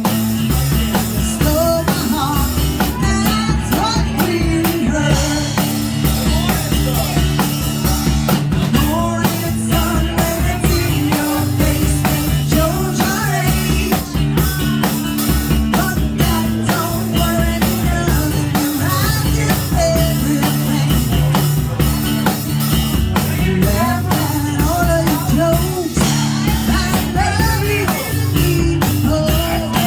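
Rock cover music played by a duo: a drum beat and band instruments under a singing voice, running steadily.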